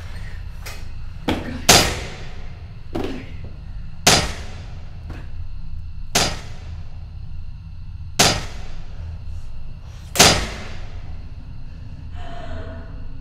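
Five loud bangs about two seconds apart, each ringing out, with a few fainter knocks between them, over a low steady rumble.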